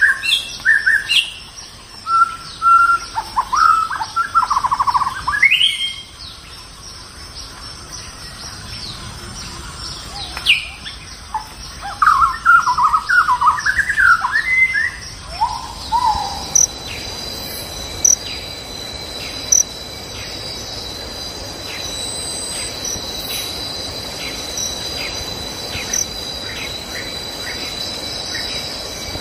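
Birds calling in bursts of short chirps and whistled phrases, which stop about halfway through. A steady high insect drone with regular ticking then takes over.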